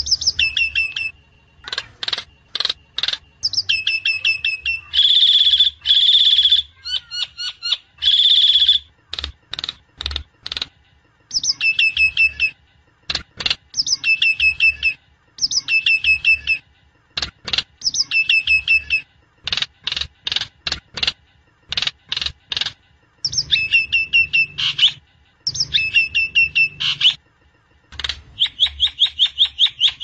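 Myna (sáo đen) calling repeatedly: phrases of fast harsh chattering notes and whistled notes that drop in pitch, repeating about every two seconds, with two longer rasping notes about five and eight seconds in.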